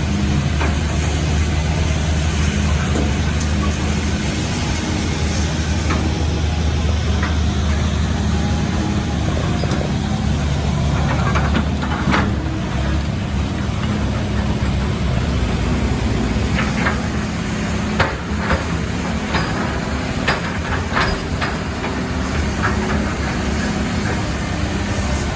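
Heavy vehicle engine running steadily with a deep hum, and a series of sharp knocks and clanks starting about halfway through.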